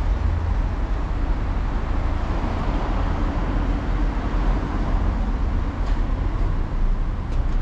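Steady city street noise with a low rumble of road traffic.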